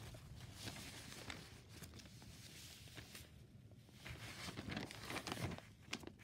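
Faint rustling and crinkling of loose paper sheets being shuffled and moved by hand, with a few louder rustles about four to five and a half seconds in.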